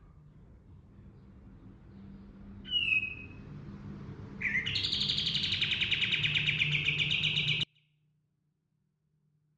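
Kapas tembak (a bulbul) singing: one short falling whistled note, then about four and a half seconds in a fast rolling trill lasting about three seconds that cuts off suddenly.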